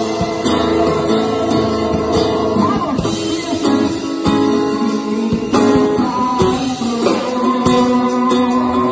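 Live worship music from a small band: an acoustic guitar strumming under singing through a PA system.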